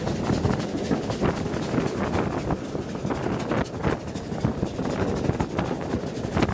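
A steam train running at speed, heard from a carriage window behind a Bulleid West Country class light Pacific: a steady mix of locomotive exhaust, wheel and rail noise and wind buffeting the microphone, with irregular surges.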